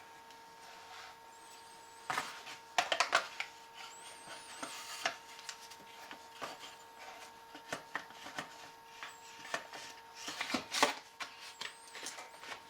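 Ruger 10/22 action being worked and pressed into a tight, friction-fit Magpul Hunter X-22 polymer stock: scattered clicks, knocks and rubbing of metal against plastic. The loudest clusters come about two to three seconds in and again near eleven seconds.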